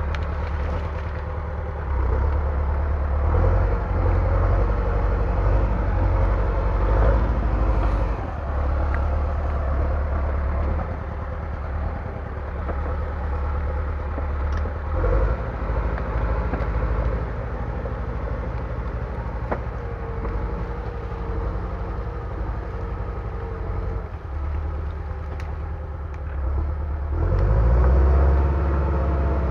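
Heavy diesel engine running steadily under load. It throttles up about two seconds in and surges again with a rising pitch near the end.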